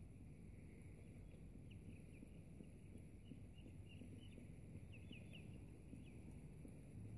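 Near silence, broken by faint bird chirps: short, quick, high notes scattered through the middle seconds.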